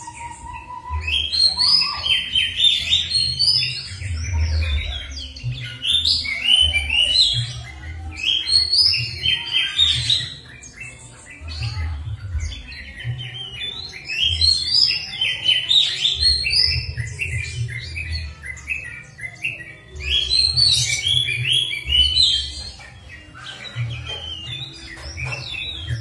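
Songbird song of the kind played as a lure to set kept birds singing: fast, varied phrases of rapid high chirps and whistles, with brief lulls now and then. An intermittent low thumping runs underneath.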